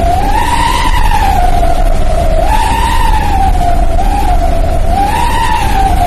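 A truck's 'wolf' exhaust whistle howling, heard from inside the cab: one unbroken wailing tone that swells up and sags back in pitch every couple of seconds, over the low, steady drone of the engine.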